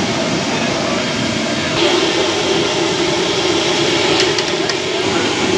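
Fish deep-frying in a large karahi of hot oil, a steady, dense sizzle over the running gas burner. About two seconds in, a steady hum joins it, and a few faint ticks fall near the end.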